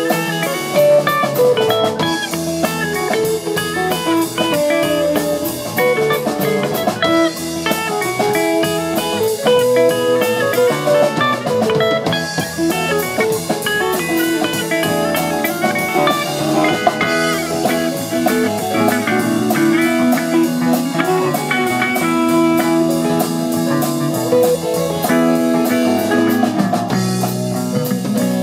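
Live rock band playing: two electric guitars, electric bass and a drum kit.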